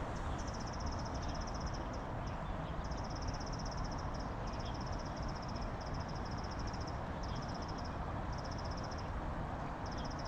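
An insect, cricket-like, trilling in repeated high-pitched bursts of rapid pulses, each about a second long with short gaps, over a steady rushing background noise.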